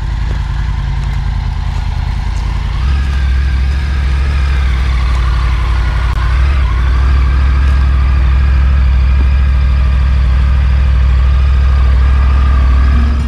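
Triumph Tiger 900's three-cylinder engine running after a start, idling and then pulling away at low speed. The engine gets louder about three seconds in and again about halfway through.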